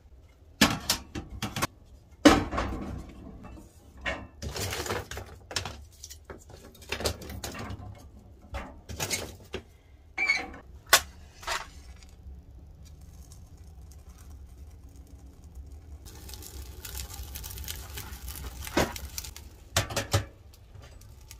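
Sticks of kindling clattering and knocking against the steel firebox of a Winnerwell Nomad View wood stove as they are loaded in. About three-quarters of the way through a steady rushing hiss starts as the kindling is lit and catches. Near the end come two sharp metal knocks as the stove door is shut and latched.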